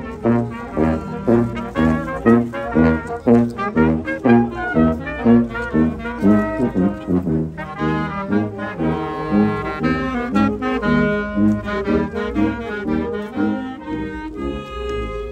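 Live wind band playing a march-like procession tune: sousaphone bass notes on a steady beat, about two a second, under trumpets and clarinets, with the clarinets' melody coming forward about halfway through.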